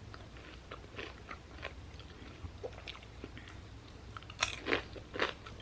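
Close-miked chewing of crunchy food: soft, irregular crunches that grow louder and closer together in the last second or so.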